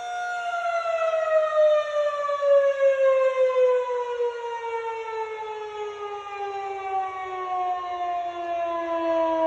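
Federal Signal 2001-SRN electromechanical civil defense siren sounding its single tone, which falls steadily and slowly in pitch, winding down, with its loudness wavering.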